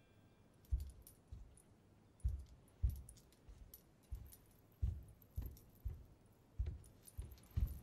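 Slow footsteps, about a dozen soft thuds at an uneven pace, with a faint metallic jingle over them, like costume ornaments moving.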